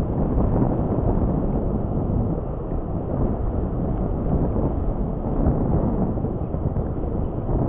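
Strong wind buffeting the microphone: a continuous low rumbling noise that swells and dips.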